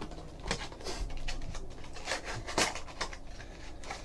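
Hands handling and opening a small cardboard trading-card box: a few soft scrapes and light taps scattered through, over a faint low hum.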